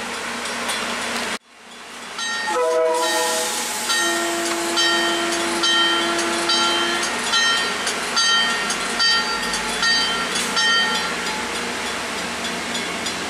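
CTrail commuter train moving slowly along a station platform. After a brief cut, steady tones step up in pitch, then a long tone holds while a ringing tone repeats about every two-thirds of a second for several seconds.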